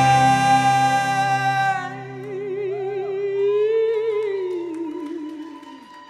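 Live indie rock band music: a long held, wordless sung note over a sustained chord. After about two seconds it gives way to a softer single tone with a wide vibrato, which sinks in pitch and fades near the end.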